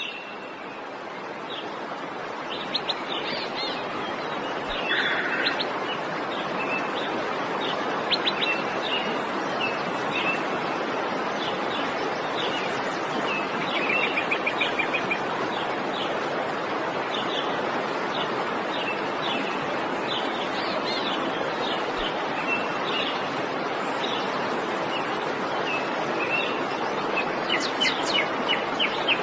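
Steady rush of a waterfall that swells over the first few seconds, with birds chirping over it throughout and a quick trill near the middle.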